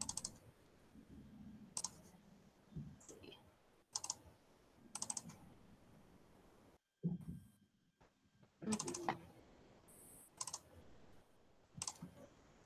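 Faint computer keyboard typing and mouse clicks: short, irregularly spaced taps and small clusters of clicks while a file is searched for and selected on the computer.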